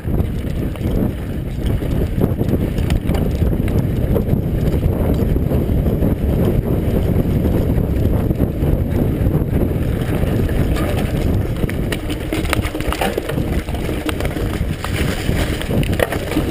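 Wind buffeting the microphone and a Giant mountain bike's tyres rolling over a dirt trail at speed, a dense steady rumble. From about ten seconds in, the bike rattles with more frequent clicks and knocks over rougher ground.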